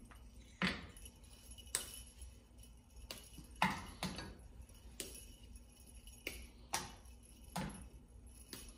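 Pieces of a white chocolate baking bar snapped off by hand and dropped into a steel saucepan: sharp snaps and taps, about one a second at an uneven pace. Small jingle bells on a necklace jingle as the hands move.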